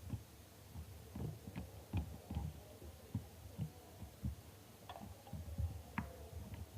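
Homemade glue slime being squeezed and poked by hand: soft, irregular sticky clicks and low squelchy thumps, faint, about one or two a second.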